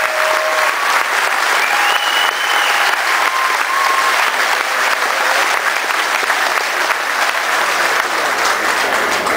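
Crowd applauding steadily, with a few short calls standing out above the clapping.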